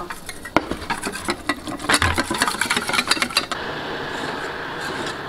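Wire whisk beating rapidly against a metal bowl, mixing cornstarch into milk for a slurry, with quick dense clicks. About three and a half seconds in, it gives way to a steady hiss.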